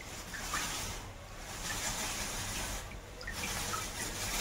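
Water splashing and dribbling in uneven bursts as bunches of wet artificial flowers are handled after washing.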